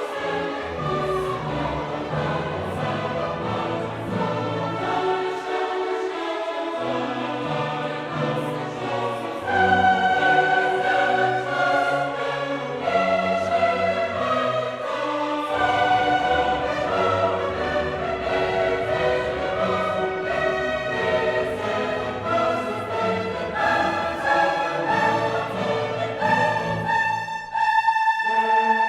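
Background orchestral music with a choir, getting louder about nine seconds in.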